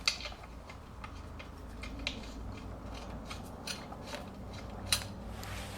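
Light metallic clicks and taps of steel washers being handled and set onto the rack's bolts, a few sharp clicks spread out with quieter ones between.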